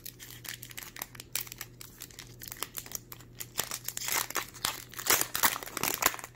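A Magic: The Gathering promo booster pack's wrapper being torn open and crinkled in the hands: a run of irregular crackles that gets louder about four seconds in.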